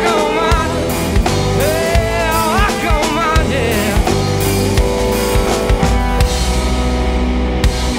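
Live rock band playing: a sung vocal line in the first half, over a drum kit and electric bass.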